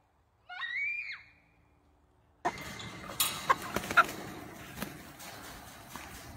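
A child's single high scream, rising and then falling, about half a second in. From about two and a half seconds in, a flock of chickens clucking and squawking, with a few sharp clicks.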